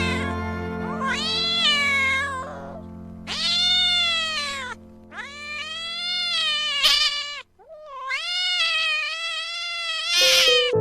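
A cat meowing four times in long drawn-out calls, each one to two seconds, over steady background music that drops out about three-quarters of the way through.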